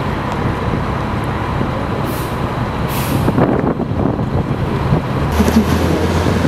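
Tour bus engine running under road noise, with two short air-brake hisses about two and three seconds in and a deeper engine hum near the end.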